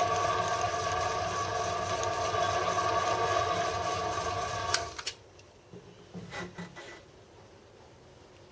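Home-built Gingery milling machine running with a steady whine, switched off with a sharp click about five seconds in, after which it goes quiet. A few soft knocks of handling follow.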